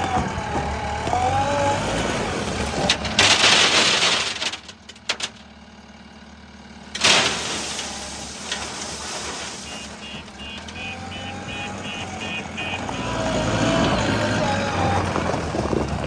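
Diesel engines of a backhoe loader and tractor running, with a loud rushing noise about three seconds in. Later a reversing alarm beeps, about three beeps a second.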